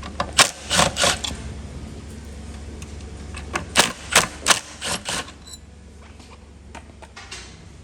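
A series of sharp, irregular clicks and clacks of screws and metal chair hardware being handled as two screws are removed from an office chair's seat mechanism with a Phillips bit, with a cluster of quick clacks in the middle.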